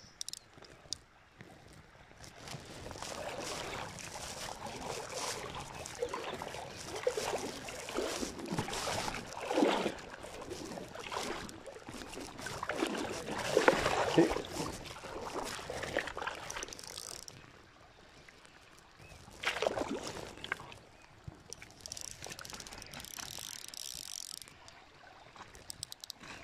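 Fishing reel being wound with rustling handling noise as line is retrieved from the river, in irregular stretches with a short louder burst about two-thirds of the way in.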